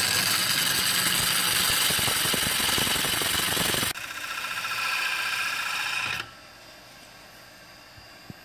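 Gouge cutting the outside of a wooden bowl blank spinning on a Record Power Coronet Herald lathe: a loud hiss of shavings peeling off for about four seconds, then a lighter cut that stops about six seconds in, leaving only the faint running of the lathe.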